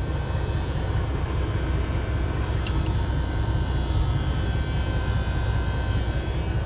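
Heavy diesel truck engine idling steadily with a deep, even rumble.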